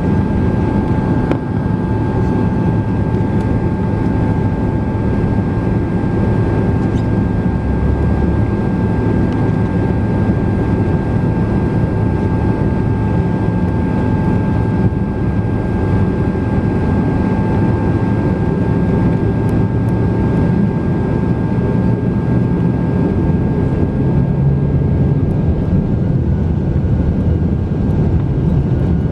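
Boeing 767-300 jet engines running at low power while the airliner taxis, heard inside the cabin over the wing: a steady rumble with two steady whining tones. Near the end a faint rising whine begins as the engines start to spool up.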